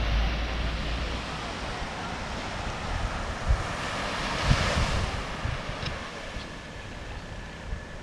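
Small waves washing onto a sandy beach, with wind rumbling on the microphone; the wash swells up about halfway through, along with a couple of low wind thumps.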